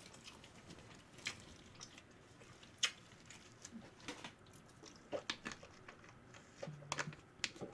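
A person chewing a mouthful of food with the mouth closed: faint, scattered soft mouth clicks and smacks, with a brief low closed-mouth hum near the end.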